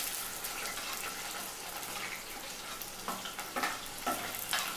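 Sliced onions sizzling as they drop into hot oil in a steel kadai, the hiss starting the moment they go in. A few sharp scrapes and clinks in the second half, from a steel spoon pushing onion off a steel plate into the pan.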